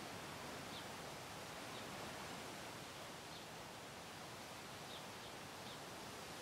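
Faint, steady outdoor hiss from an open-air microphone, with about six brief, faint high chirps scattered through.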